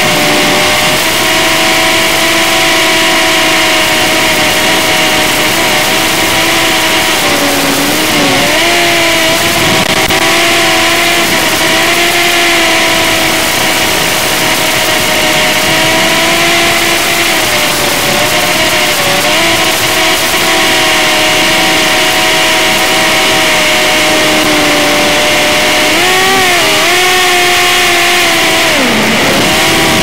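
Brushed-motor micro quadcopter's motors and propellers whining steadily in flight over a constant hiss. The pitch dips briefly about eight seconds in, wavers again late on, and drops sharply just before the end.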